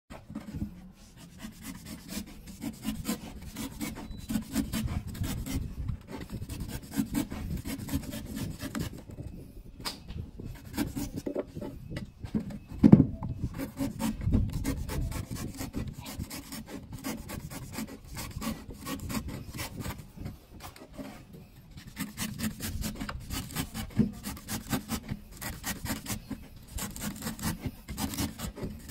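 A knife blade shaving the soft husk of a young coconut: rapid, repeated scraping strokes, with one sharp knock about halfway through.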